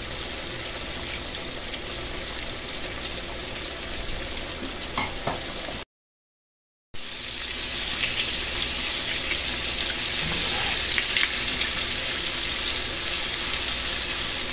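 Breaded salmon pieces deep frying in a pot of hot oil: a steady bubbling sizzle, about three minutes into the fry. The sound cuts out completely for about a second midway, then returns a little louder.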